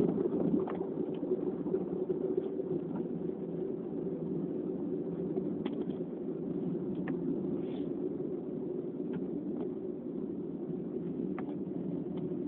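Steady low background rumble with a few faint scattered clicks.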